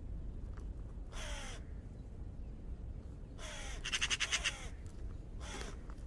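Raven giving harsh, hoarse calls that fall slightly in pitch: a single call, then a quick pair whose second call is the loudest and breaks into a rapid rattling croak, then one more call near the end, over a low steady rumble.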